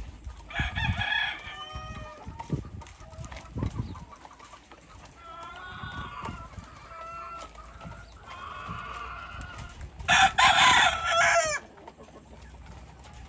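Roosters crowing, several crows one after another at different distances, the loudest and longest about ten seconds in and lasting over a second. A few dull thumps come in the first few seconds.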